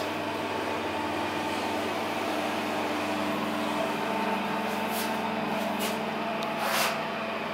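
SMW passenger elevator running as the car travels up: a steady mechanical hum, with a second, lower tone joining about three seconds in and a brief rush of noise near the end.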